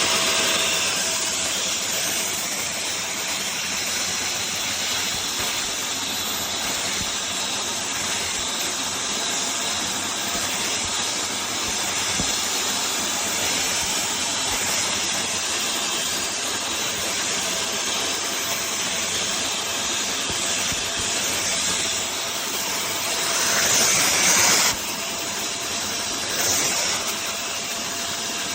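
Portable upholstery and carpet washer-vacuum running, its suction motor giving a steady rushing hiss with a faint whine. Near the end it grows louder and brighter for a couple of seconds, then drops back suddenly.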